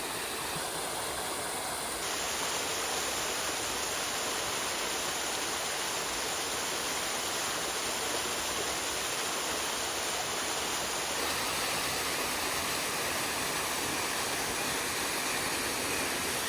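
Steady rush of running water with no rhythm of its own; its tone shifts abruptly twice, about two seconds in and near eleven seconds.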